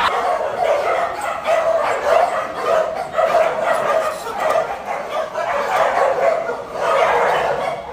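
Many dogs barking and yipping at once in an unbroken, loud chorus of overlapping calls.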